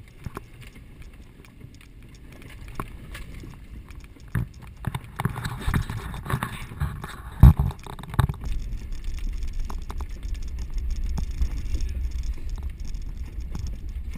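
A Subaru Forester working along a rough, muddy trail: a low engine rumble that builds after a few seconds, with a few heavy thumps in the middle as it bumps through.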